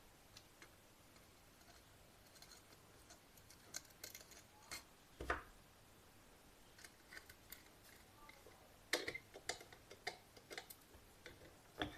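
Faint, scattered small clicks and taps of hand tools and wire on the terminals of a switch-socket-indicator power plug board while a wire end is fastened, a few sharper clicks about four to five seconds in and again about nine to eleven seconds in.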